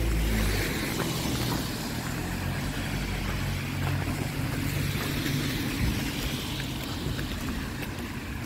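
Outdoor street ambience on a wet, slushy town street: a steady wash of traffic noise, with low wind rumble on the microphone that is strongest about the first half-second.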